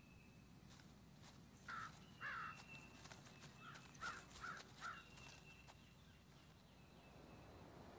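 Faint swamp ambience with a series of short crow-like bird caws, about six, between two and five seconds in. Light crackling of dry leaf litter as an armadillo roots through it, and a thin steady high tone that comes and goes.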